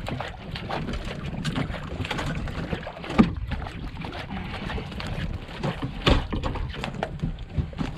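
Water slapping against the hull of a small drifting boat, with scattered clicks and a few sharper knocks, the loudest about three seconds in and another about six seconds in.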